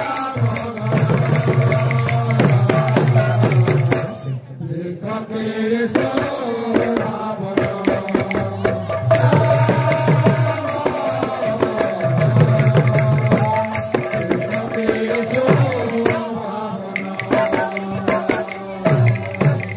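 Kirtan folk music: two double-headed barrel drums beaten in fast rhythmic strokes while small hand cymbals clash, the playing dropping away briefly about four seconds in.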